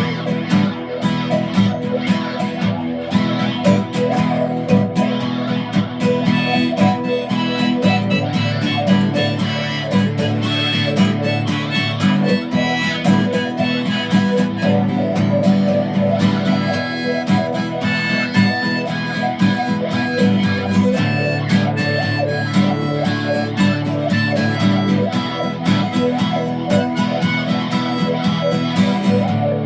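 Instrumental break of a song: guitar playing chords with a reedy, sustained lead melody over it.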